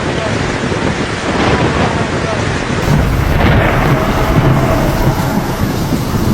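Thunderstorm: heavy rain with rolling thunder, the low rumble strongest in the second half.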